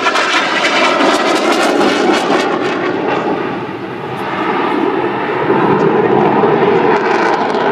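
Yak-130 jet trainer in flight: steady engine noise from its two turbofans, easing slightly about four seconds in and swelling again soon after.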